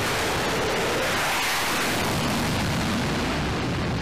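Twin jet engines of an F/A-18 Hornet at full power during a catapult launch: a loud, steady roar that deepens in pitch about halfway through as the jet leaves the deck.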